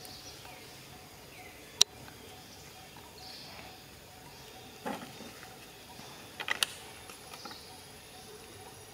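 Quiet forest ambience with faint high chirps, broken by a sharp click about two seconds in, a short knock near the middle, and a quick cluster of clicks a little later.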